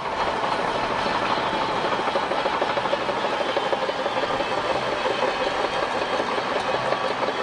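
Shantui crawler bulldozer's diesel engine running steadily as it moves, with its steel tracks clattering.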